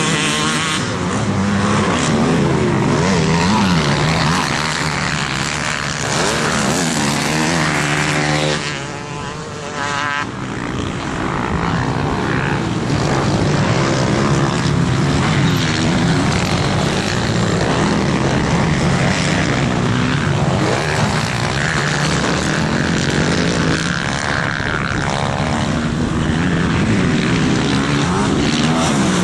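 Several motocross dirt-bike engines running on the track, revving up and down through the gears. Pitches rise and fall and overlap as bikes pass. There is a brief quieter patch about nine seconds in before an engine climbs in pitch again.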